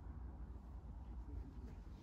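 Quiet room tone with a steady low hum, and a few faint light rustles near the end.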